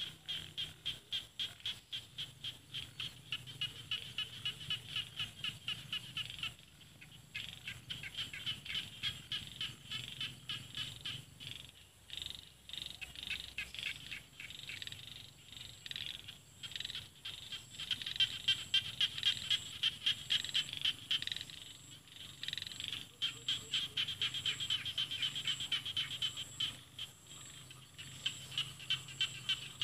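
A chorus of small rice-paddy frogs (khiat) calling in rapid trains of short, high, clicking pulses, about three loud pulses a second. The calling goes on in bouts with brief lulls every few seconds.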